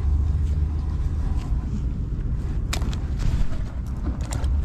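Steady low outdoor rumble, with a few short clicks and crunches as hands squeeze a ball of groundbait and toss it into an ice-fishing hole.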